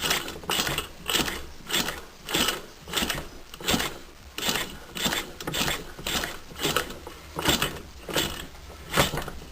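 Puch moped engine being cranked over for a spark test, the mechanism clicking and whirring in an even rhythm of about two and a half strokes a second.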